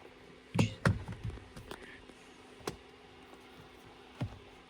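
Light taps and clicks of a Torx screwdriver working loose the screws that hold a steering-wheel paddle shifter, a few close together about a second in, then two single clicks.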